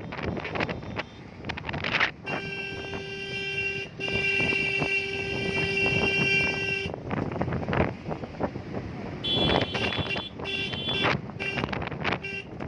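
Vehicle horns honking in jammed traffic: a long horn blast of about five seconds with a brief break in it, then a second, higher-pitched horn and a few short toots, over steady traffic noise.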